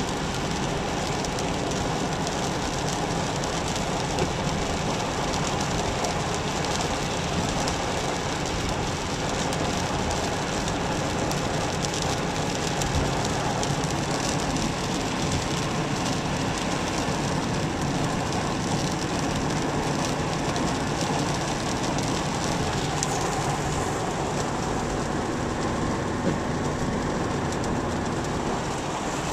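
Steady cabin noise of a 2001 Subaru Legacy Outback wagon cruising on a wet road in the rain: an even hiss and rumble of tyres on wet pavement mixed with rain on the car and the engine.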